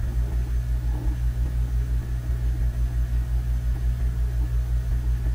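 A steady low rumble that pulses a few times a second, with nothing higher in pitch over it.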